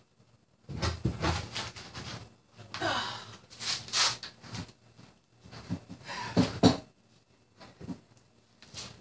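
Irregular scraping and knocking of kitchen demolition work, starting about a second in and stopping about seven seconds in, followed by a few softer knocks.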